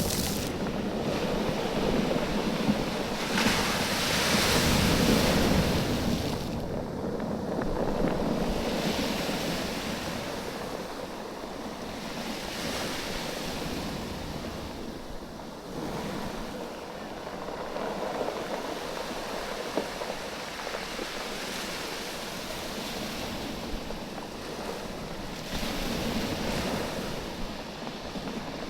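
Waves surging in and draining back over a bed of rounded, oval beach stones, with the stones rattling and clacking against each other in the moving water. The surf swells loudest a few seconds in and again near the end.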